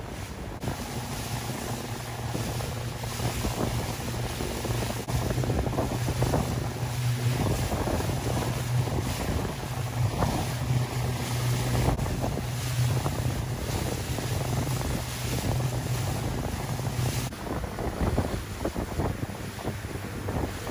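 Wind buffeting the microphone over open sea, with water splashing, and a steady low motor hum that stops near the end.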